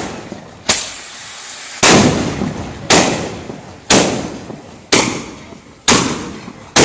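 Mascoli, small gunpowder-charged iron mortars set in a row on the road, going off one after another: seven sharp bangs about one a second, each dying away slowly before the next.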